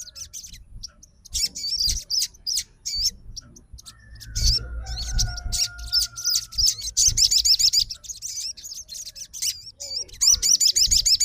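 Sogon songbird singing in bursts of fast, high, warbling chirps and trills, loudest near the end, with a held whistle partway through.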